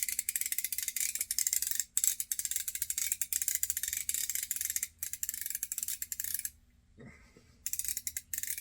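Old Weber Water Witch fishing reel being cranked by hand, its click ratchet rattling in fast runs of clicks. The clicking breaks off briefly about two and five seconds in and pauses for about a second near the end before starting again. The stiff reel is being worked in after oiling.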